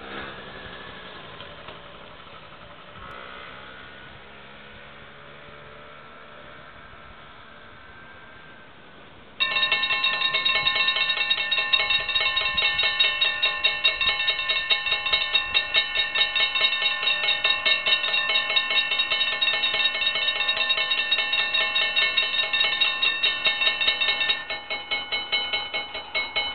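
A Dutch level crossing's warning bells start suddenly about nine seconds in and ring rapidly and steadily, signalling an approaching train as the red lights flash and the barriers lower. About 24 seconds in the ringing drops in level but carries on, with the barriers down. A car passes at the start, before the bells begin.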